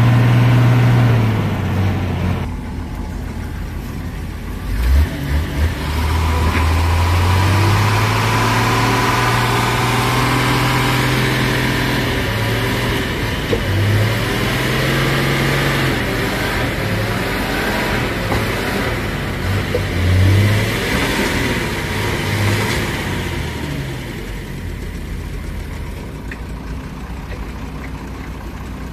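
Diesel engines of a JCB backhoe loader and a log-laden Shaktiman truck running and revving hard, their pitch rising and falling repeatedly, as they strain to free the truck bogged down in deep mud. A few thumps come about five seconds in, and the engines settle lower near the end.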